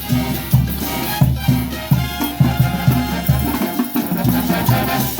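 Mexican banda music playing: a brass band arrangement with a bouncing, repeated low bass line and percussion.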